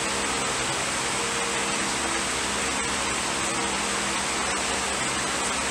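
A man chewing a mouthful of crunchy wafer-shaped cereal in milk, the crunches faint small ticks under a steady hiss with a low hum.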